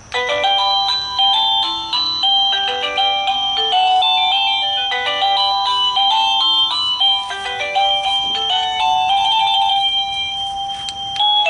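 AVANTEK wireless doorbell receiver playing one of its electronic chime melodies: a quick tune of short, stepping notes. It breaks off briefly near the end as another tune begins.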